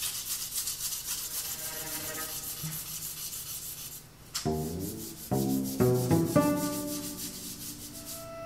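Soundtrack music: a fast, even scratching or rubbing rhythm, joined about halfway by low bowed-string notes that step through a short phrase.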